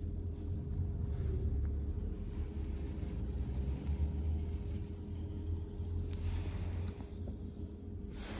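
Low, steady engine and road rumble of a car heard from inside the cabin while driving, with a faint constant hum above it.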